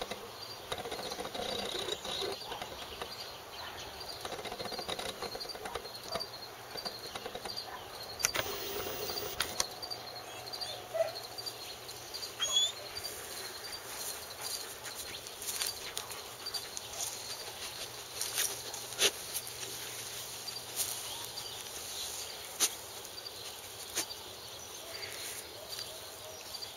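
Quiet yard ambience: a faint, evenly paced insect chirp, with scattered short clicks and rustles.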